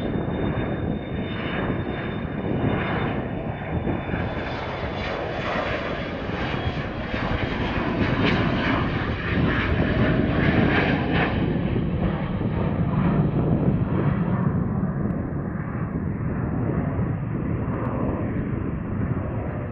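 Bombardier Challenger 350 business jet's twin Honeywell HTF7350 turbofans at takeoff power through the takeoff roll, lift-off and climb-out: a loud, steady jet noise with a thin high whine in the first few seconds. About fourteen seconds in the sound loses its highs and turns duller as the jet climbs away.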